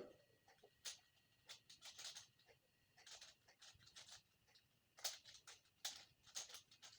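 5x5 Rubik's cube being turned by hand: faint, irregular clicking and clacking of its layers, several turns a second, a little louder about five to six seconds in. The solver is building the centre pieces.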